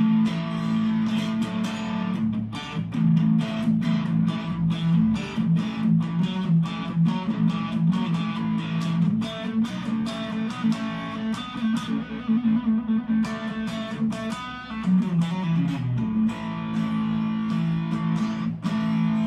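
Harley Benton Modern Strat SSH electric guitar played with a distorted tone: fast picked riffs over ringing low notes, changing to a quicker run about three-quarters through. It is in a mixed pickup position that the player says stays free of buzz, which he takes as a sign of good wiring.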